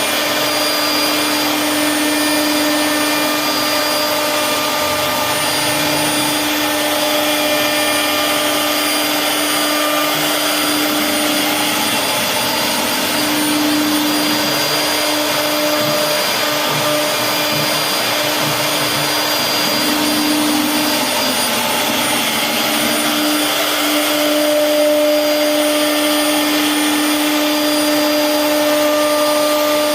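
CNC router spindle running with a steady high whine while routing wood, over a broad hiss of cutting. Its pitch wavers and sags a little for a while in the middle as the bit takes load.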